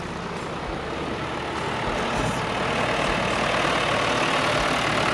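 Vintage John Deere farm tractors' diesel engines running as they drive past, the sound steadily growing louder as a John Deere 2120 approaches.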